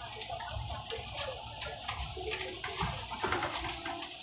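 Inside a moving airport apron bus: a low engine and road rumble with rattles and clicks from the bus body.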